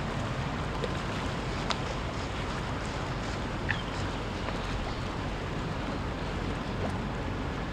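A passing boat's motor rumbles steadily over wind on the microphone, with a couple of brief high chirps about two and four seconds in.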